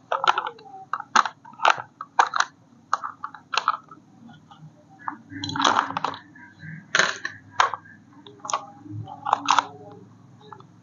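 Irregular sharp clicks and crackles, several a second, with short pauses between clusters.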